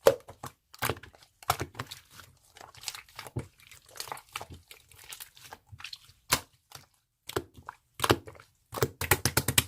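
Irregular crinkling and crackling clicks from something being handled close to the microphone, ending in a quick run of clicks in the last second.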